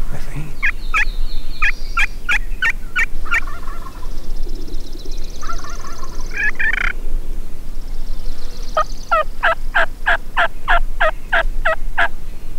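Turkey yelping: two runs of rapid, evenly spaced yelps, each note breaking from a lower to a higher pitch, about four a second. The first run falls in the first few seconds and the second near the end, with a short burst of notes between them.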